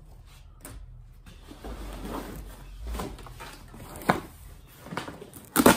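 Cardboard shipping box being cut and torn open by hand: rough scraping and tearing of the cardboard, with a few sharp knocks and slaps against the box, the loudest near the end.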